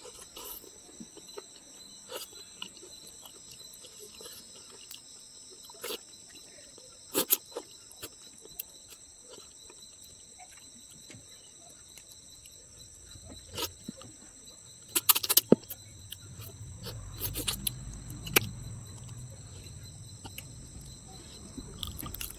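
Crickets chirring steadily in the background, with scattered sharp clicks and knocks from eating, the loudest a cluster a little past the middle. A low rumble sets in during the last third.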